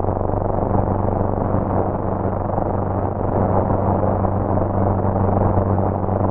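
A sustained droning score: a steady low hum with a dense, even hiss over it, holding level without a beat or melody.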